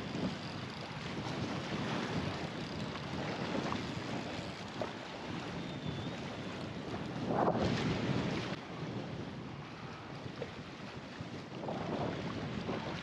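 Wind blowing on the microphone over choppy sea water, with a stronger gust about seven and a half seconds in.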